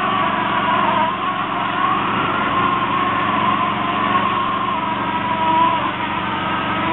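Small engine running steadily, with a slightly wavering whine over a constant low hum.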